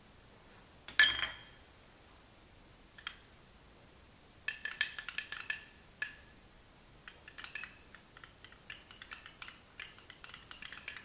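Metal spoon clinking against a small glass cup while stirring instant coffee into water to dissolve it: one sharp clink about a second in, then runs of quick, light clinks.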